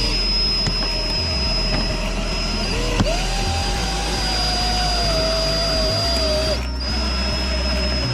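Electric wire-winder motor running steadily as it pulls the cutting wire through the windshield's urethane bead, with a high steady whine and a wavering mid-pitched whir over its drone.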